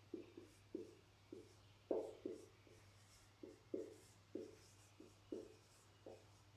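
Marker pen writing on a whiteboard: a faint run of short, irregular strokes, about one or two a second, the strongest about two seconds in, over a low steady hum.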